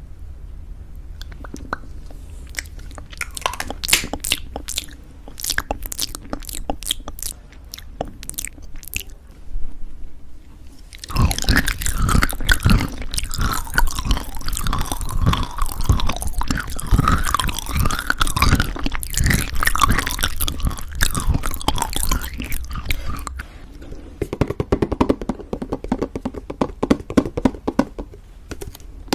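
Close-miked ASMR eating of homemade granola in thick yogurt: scattered sharp clicks for about the first ten seconds, then a long stretch of loud, dense crunchy chewing that eases to softer chewing near the end.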